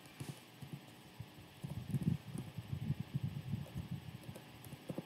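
Faint, irregular soft taps of typing on a computer keyboard, mostly from about a second and a half in until near the end.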